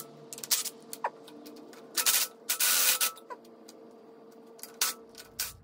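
Hand tools working the valve cover bolts off a Ford 302 V8: scattered sharp metal clicks and clinks, with a short rasping burst about two and a half seconds in, over a faint steady hum.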